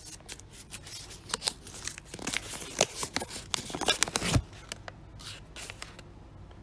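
A folded paper note being unfolded by hand right at the microphone, with irregular crinkling and rustling that is busiest in the middle and dies away near the end.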